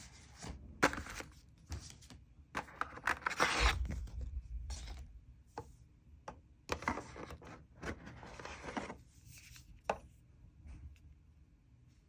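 A product box and its packaging being opened and handled: irregular rustling and scraping with sharp taps and clicks, loudest in two longer stretches in the middle and near the end.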